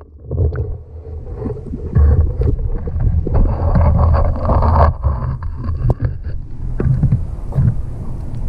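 Low, uneven rumble of wind buffeting the microphone over street traffic, with a few short, sharp knocks.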